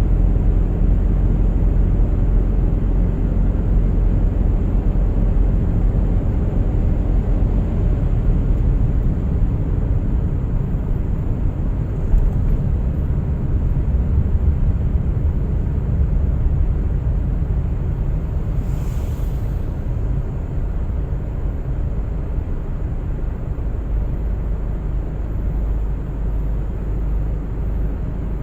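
A car driving on a winter road: a steady low rumble of tyres and engine that eases slightly toward the end, with a brief hiss about two-thirds of the way through.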